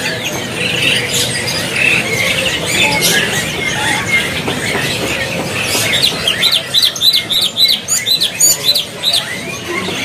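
Caged cucak cungkok (blue-winged leafbird) singing loudly in full song: a fast, varied chatter of high chirps, with a run of quick repeated notes, about five a second, in the second half.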